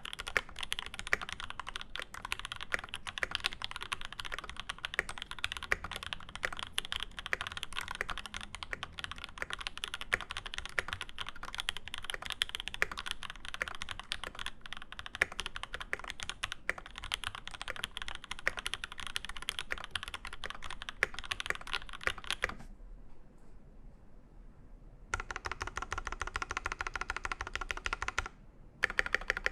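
Fast, continuous typing on a Space65 CV mechanical keyboard with lubed Alpaca linear switches, a carbon-fiber plate and GMK keycaps. The typing stops for about two seconds roughly three-quarters of the way in, resumes, and pauses briefly again just before the end.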